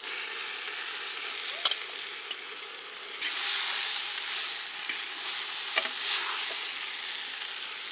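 Pounded country-chicken meat sizzling and frying in hot oil and ground masala in a clay pot, stirred with a ladle, with a few sharp clicks from the stirring. The sizzle grows louder about three seconds in.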